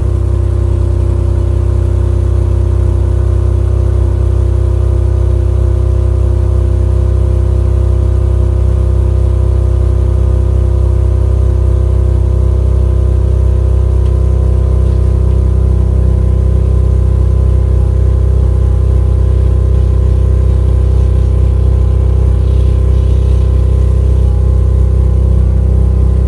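Vauxhall Vectra GSI's V6 engine idling steadily through a newly fitted sports catalytic converter and back box, heard at the tailpipes. The exhaust joint is not yet welded or sealed, so the exhaust is blowing there.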